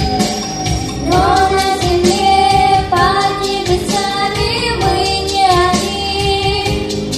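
A song: a singer carries a melody in held, gliding notes over a backing with a steady beat.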